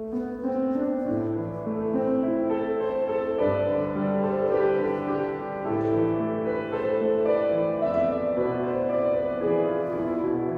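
A violin ensemble with piano accompaniment playing a slow piece in long held notes and chords.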